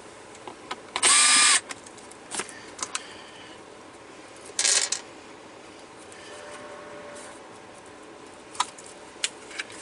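DeWalt 12V Max Xtreme cordless screwdriver running for just under a second about a second in, with a steady motor whine, backing out a T15 Torx screw. A short burst of handling noise follows near the middle as the module is pulled free, and there are a few light clicks near the end.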